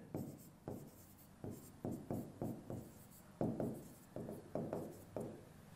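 Marker pen writing on a whiteboard: a run of short, faint strokes.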